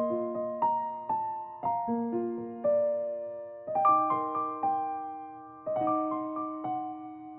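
Background music: a gentle piano melody with chords, notes struck about twice a second and left to ring and fade.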